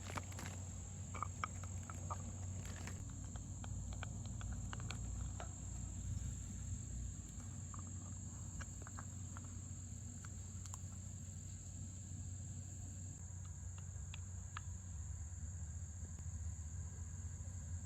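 Faint scattered clicks and scrapes of a dog's teeth gnawing a hard deer or caribou antler chew, coming in short bunches with pauses between. A steady high-pitched drone runs underneath.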